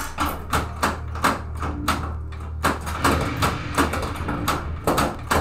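Pinball machine's electronic soundtrack playing, with a fast, steady beat of about four hits a second over a low bass drone.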